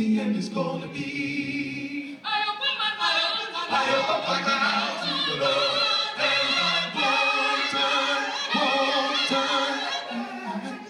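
Male gospel vocal group singing into microphones in harmony; about two seconds in, more voices come in higher and fuller.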